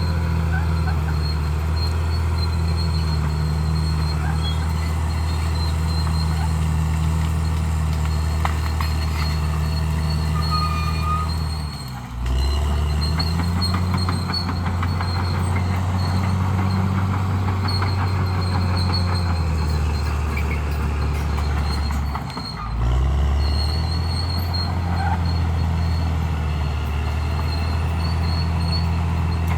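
Bulldozer's diesel engine running steadily under load. Twice, about twelve and twenty-two seconds in, the engine note drops briefly and then climbs back up.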